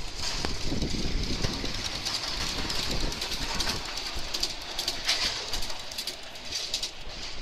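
Ride-on miniature park train running along its track, with the wheels clicking irregularly over the rail joints above a steady running noise.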